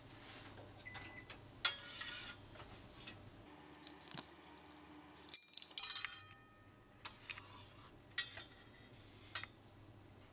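Metal spoon stirring a gelatin liquid in a stainless steel saucepan, scraping and clinking against the pan, with a few clinks ringing briefly.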